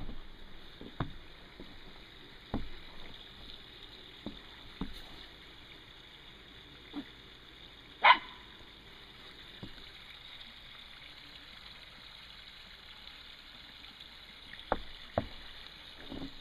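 Toy Fox Terriers moving and digging in snow: scattered soft crunches and thumps every second or two, with one short, sharp bark about halfway through.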